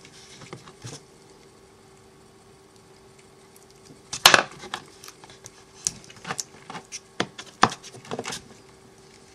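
Irregular small clicks and crackles of electrical tape being handled and wrapped around a model locomotive's DCC decoder and wiring, starting about four seconds in, over a faint steady hum.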